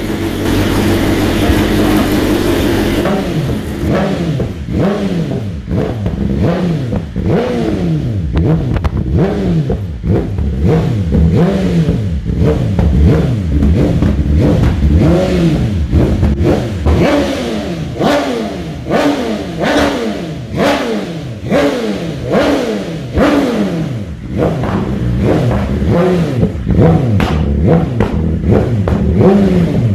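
BMW S1000RR (2019) inline-four engine breathing through an Akrapovic silencer. It idles steadily for the first few seconds, then is revved in quick throttle blips over and over, each rev rising and dropping back.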